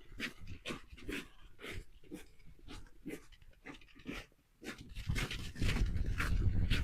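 Beagle panting in quick, even breaths, about two to three a second. A louder low rumble comes in about five seconds in.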